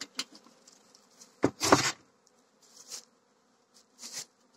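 Carniolan honeybees buzzing over an open hive, with a short puff of air from a bellows smoker about a second and a half in, the loudest sound; a few light clicks and softer hisses come and go.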